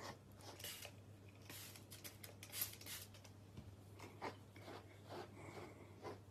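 Faint scratchy strokes of a grooming brush drawn through a Pembroke Welsh corgi's thick coat, a series of short rasping passes.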